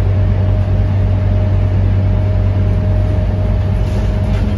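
Scania K230UB city bus's five-cylinder diesel engine droning steadily while the bus cruises, heard from inside the passenger cabin, with a thin steady whine above the low hum.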